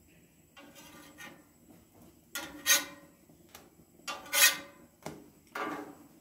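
Metal spatula scraping across a flat iron griddle plate in four short strokes, the middle two loudest, as it slides under pancakes to turn and move them.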